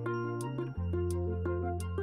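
Instrumental background music with a steady light beat over a held bass note that changes pitch under a second in.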